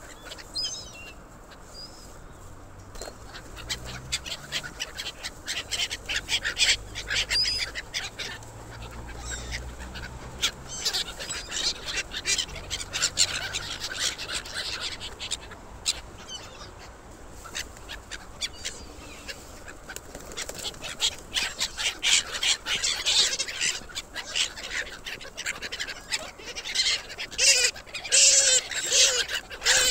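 A flock of gulls calling, many short cries overlapping, growing busier and louder in the second half, with a low rumble underneath in the first half.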